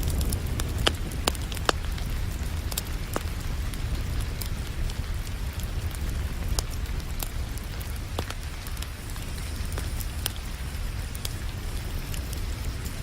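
Wood fire crackling, with scattered sharp pops over a steady hiss of rain. The loudest pops come in a cluster about one to two seconds in.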